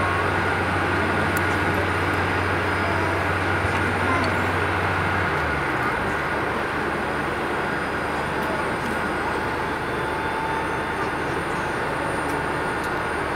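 Steady airport apron noise around a parked airliner, with a held whine. A low engine drone from a ground vehicle stops about five seconds in.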